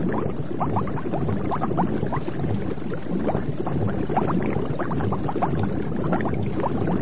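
Continuous underwater bubbling: many short rising bubble blips, several a second, over a steady low water rumble.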